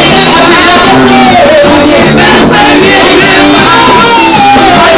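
Loud live praise-and-worship music: singing over keyboard with a steady beat.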